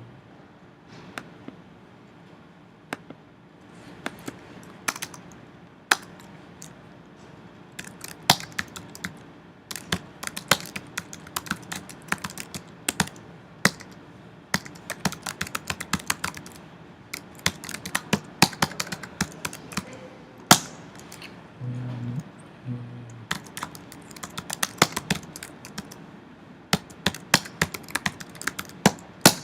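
Typing on a computer keyboard: a few scattered key presses at first, then quick runs of keystrokes with pauses between them.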